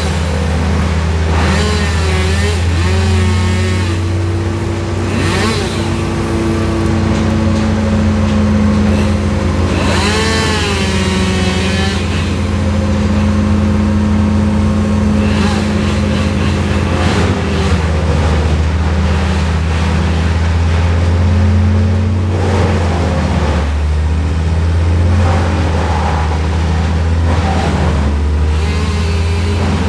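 Crane's engine running steadily under load, its pitch shifting a few times as it works.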